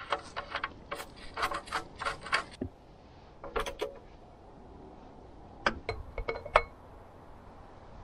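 Light metallic clinks and taps from tools and engine parts being handled during an oil change. They come in three clusters of quick clicks: a flurry at first, a brief one in the middle, and a last group near the end with a short ringing note.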